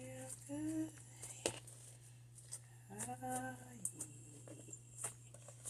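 A person humming two short phrases, over a few faint sticky clicks of slime being kneaded by hand. A steady low hum runs underneath.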